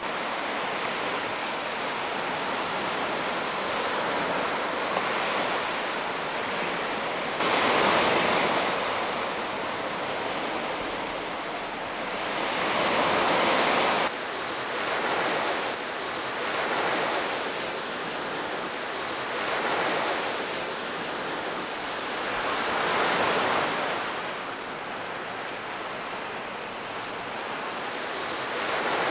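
Sea waves breaking and washing up a sandy, pebbly beach, the surf rising and falling every few seconds, with two abrupt jumps in level.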